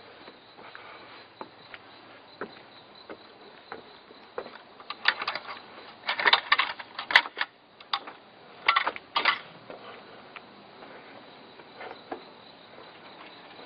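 Crickets chirping steadily in the night, with a run of sharp clicks and rattles of handling or movement about halfway through.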